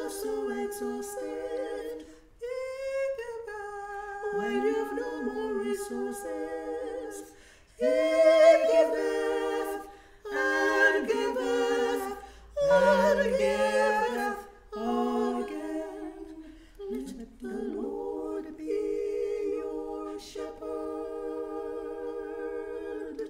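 Three women singing a hymn a cappella in close harmony, phrase by phrase with short breaks, ending on a long held chord over the last several seconds that stops at the end.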